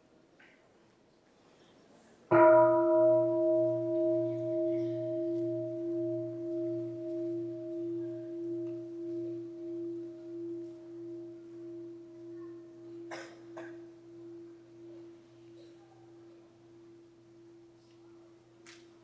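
Large Buddhist bowl bell struck once about two seconds in, then ringing on with a slow pulsing fade: a bell of mindfulness inviting a pause for breathing.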